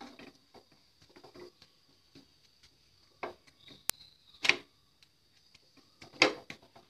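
Slotted metal spatula pressing and tapping a dry roti against a non-stick pan as it half-cooks: scattered light taps and scrapes, the two loudest about four and a half and six seconds in.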